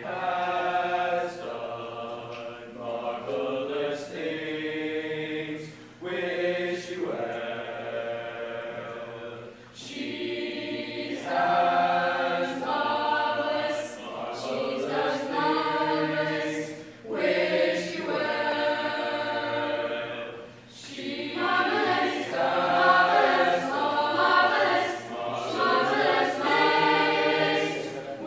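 Mixed high school choir singing in harmony, in phrases broken by short pauses for breath.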